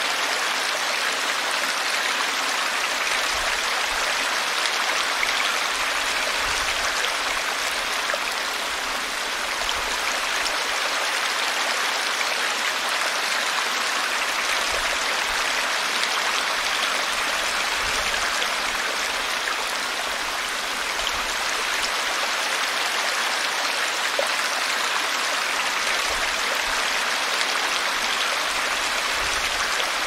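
Woodland brook flowing and babbling in a steady, even rush, the gentle rushing made by air bubbles mixed into the moving water.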